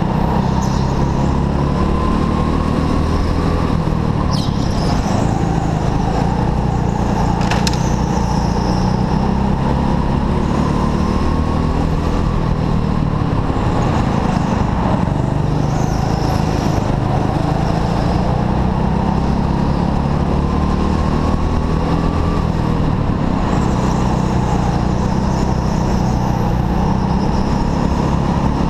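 Indoor rental go-kart's engine running hard, its whine climbing in pitch down each straight and dropping back into the corners, several times over.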